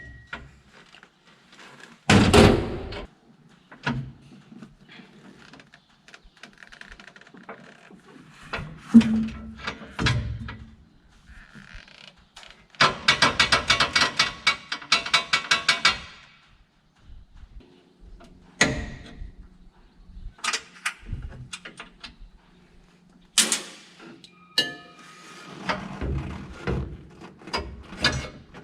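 Irregular metal knocks and clunks from tools and parts on a combine as its rotor drive belt is being changed, with a run of rapid, evenly spaced clicks lasting about three seconds midway.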